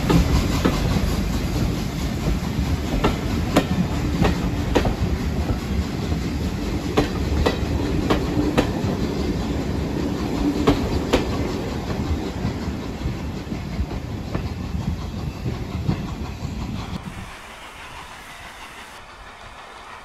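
Mk1 passenger coaches rolling past close by: a steady rumble of wheels on rail with repeated sharp clicks as the wheels cross the rail joints. About three seconds before the end it drops suddenly to a much quieter, duller rumble.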